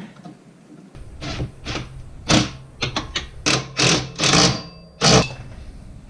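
Cordless impact driver hammering in about nine short spurts, driving the rear brake caliper bolts tight on a Honda Pioneer 500.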